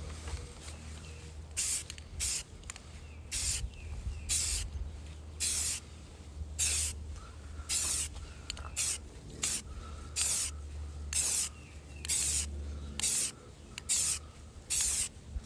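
Rust-Oleum flat deep forest green aerosol spray paint can hissing in about sixteen short bursts, with brief pauses between them, as camouflage stripes are sprayed onto a rifle.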